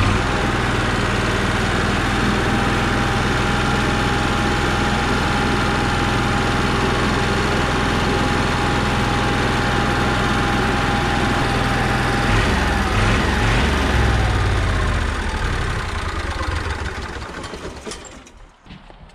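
Onan Marquis Gold 5500 RV generator running steadily after a fresh start, left to warm up so the oil circulates before an oil change. Near the end it winds down and goes quiet.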